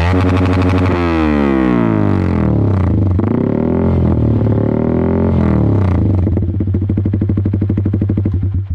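Yamaha R15 V3's single-cylinder engine revved through an aftermarket exhaust silencer: the revs fall, climb again and drop back, then it idles with an even pulse and cuts off suddenly at the end.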